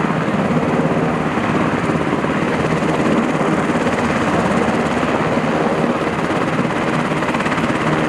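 A helicopter running on the ground: steady turbine and rotor noise.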